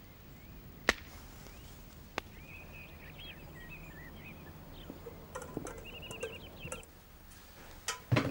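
Quiet rural ambience with birds chirping in short twittering phrases. A couple of sharp knocks sound about one and two seconds in, and a heavy thump comes near the end.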